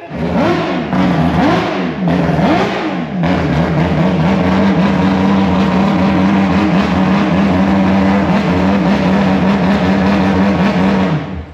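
Six-rotor rotary (Wankel) engine running loud. The revs are blipped up and down about three times in the first three seconds, then held steady, and the sound cuts off sharply near the end. It runs cleanly, what the crew call sounding good.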